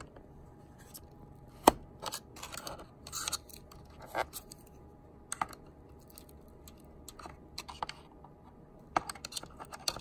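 SSD being slid along the HP ProBook 4730s's drive bay and pushed onto its connector: light scraping and scattered clicks of plastic and metal, with one sharp click about two seconds in and a few fainter ones after.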